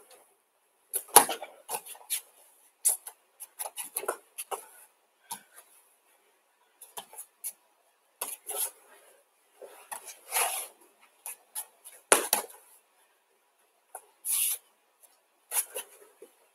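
Bare feet stepping and pivoting on judo tatami mats, with the cloth jacket of a throwing dummy rustling, during repeated uchi-mata entries against the dummy. There are irregular scuffs and a few sharp thumps, the loudest about a second in and about twelve seconds in.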